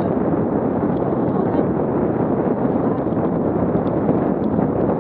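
Steady rush of wind on the microphone mixed with the rolling noise of a dog scooter's tyres on a dirt track at about 18 mph.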